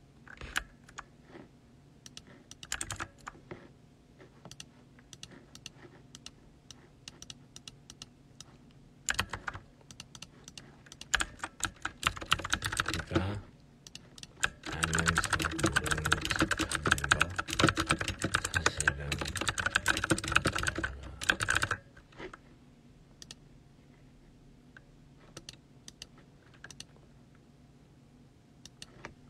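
Typing on a keyboard: scattered single keystrokes, then a short run of fast typing about eleven seconds in and a longer run from about fifteen to twenty-two seconds.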